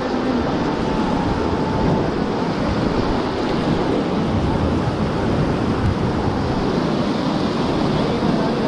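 Whitewater rapids of a mountain river rushing steadily around an inflatable raft, with wind on the microphone.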